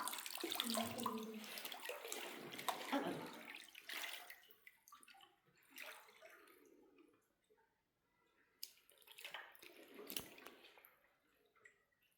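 Water splashing and sloshing as a person moves through a cold cave pool. It is continuous for the first four seconds or so, then thins to a few scattered splashes and drips.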